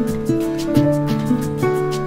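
Soft instrumental background music with sustained notes changing every half second or so over a light, even beat.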